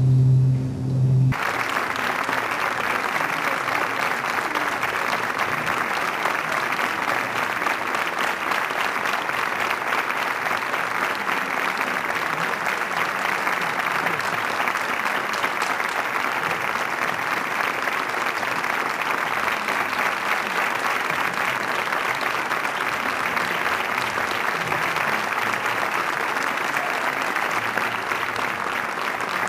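Audience applauding steadily in a theatre. It starts about a second in, as a low held tone cuts off.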